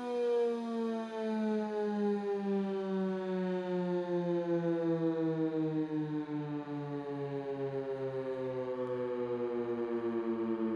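Outdoor warning siren winding down during a test, its rich, pitched tone falling steadily and slowly lower, wavering regularly in loudness.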